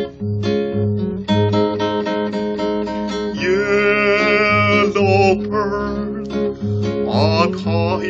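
Classical acoustic guitar played fingerstyle, with plucked melody notes over a regular bass line. A man's singing voice joins about three and a half seconds in and comes in again near the end.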